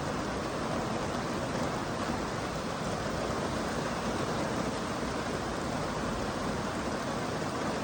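Steady rain falling, an even unbroken hiss and rush with no single drops or changes standing out.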